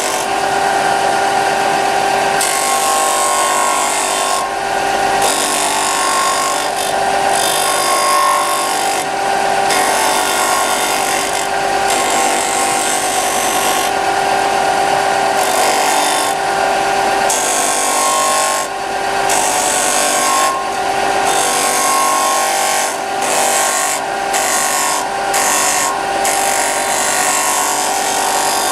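An electric power tool runs steadily on wood: a constant motor hum under a dense working noise that drops away for a moment many times over.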